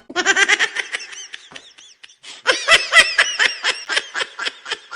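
A person laughing in quick, repeated bursts, a meme laughter sound effect. A first run fades out after about a second and a half, and a second, louder run starts about half a second later.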